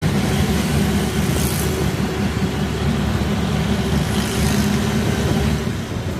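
Auto-rickshaw's engine and road noise, heard from the passenger seat while riding along a road, steady throughout.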